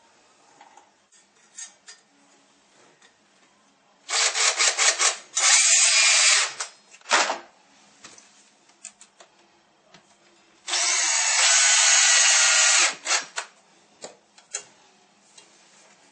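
Power drill boring fixing holes in the wall for the radiator brackets: a first run about 4 s in that starts in short stutters and then runs steadily, and a second steady run of about two seconds near 11 s in. Small knocks and handling sounds come between the runs.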